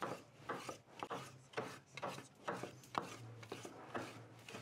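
Two large kitchen knives chopping raw beef by hand on a wooden cutting board: a quick, uneven run of chops about three a second as the blades strike the board, hand-mincing the meat.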